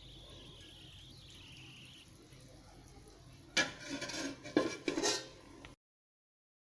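A cooking utensil scraping and knocking against a pan while stir-frying water spinach. The clatter comes in a quick cluster of strikes over about two seconds in the second half, after a faint quiet stretch, then cuts off suddenly.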